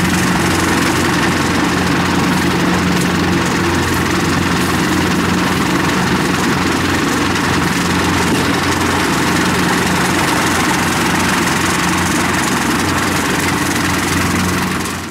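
Engine of a tracked rice-hauling carrier idling steadily at an even pitch.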